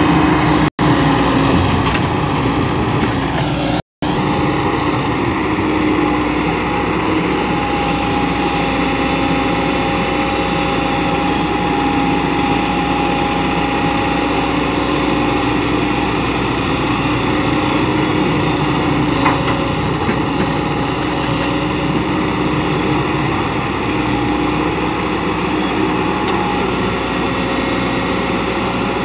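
JCB tracked excavator's diesel engine running steadily while it digs and loads a dump truck, with a steady whine over the engine noise. The sound cuts out briefly twice in the first few seconds.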